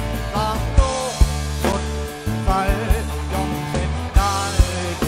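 Live rock band playing a song: steady bass, regular drum hits and a wavering melody line on top.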